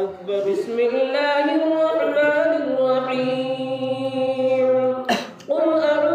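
Unaccompanied devotional singing of Durood Sharif in the melodic Milad style, the voice holding long notes that slide up and down in pitch. About five seconds in, the singing breaks off briefly with a short noisy burst, then resumes.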